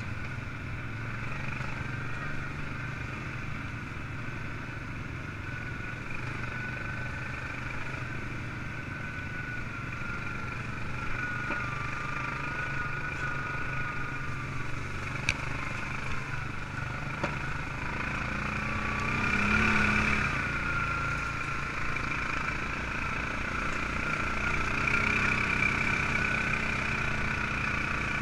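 ATV engine running under way, its pitch drifting up and down with the throttle; it swells louder about twenty seconds in. Two sharp knocks come a couple of seconds apart in the middle.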